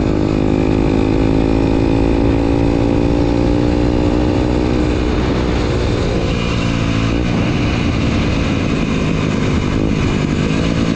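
Motorcycle engine running under way with wind noise; the engine note sags slowly for the first few seconds, dips around six seconds in as the throttle is eased, and picks up again near the end.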